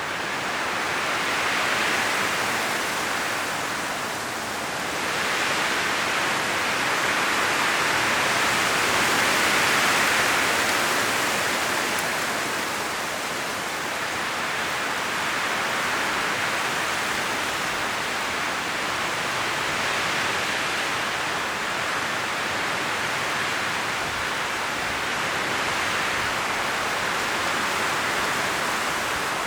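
Strong wind gusting through forest trees, the leaves rustling in a steady rushing hiss that swells and eases, with the strongest gusts about two and ten seconds in.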